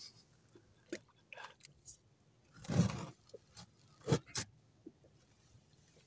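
Hands working a bare fishing handline in a small wooden boat: scattered clicks and rustles, a louder rushing burst nearly three seconds in, and two sharp clicks a little after four seconds.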